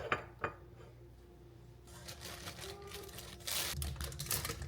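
Light kitchen clatter: scattered small clicks and knocks of dishes and utensils being handled, with a short scraping hiss about three and a half seconds in.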